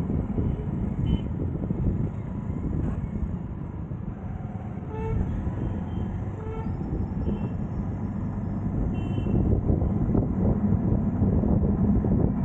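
City road traffic: a steady low rumble of engines and tyres, with short vehicle horn toots sounding every few seconds.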